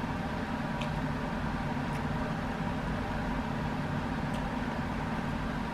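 Heater running with a steady, even hum and whir, the room's main background noise; a few faint clicks sit on top of it.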